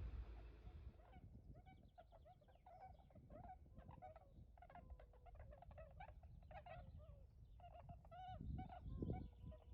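A flock of wild swans calling faintly: many short honking calls overlapping one another, starting about a second in.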